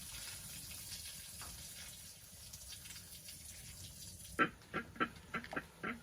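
Water running steadily, cutting off suddenly about four seconds in, then a quick series of short, sharp sounds.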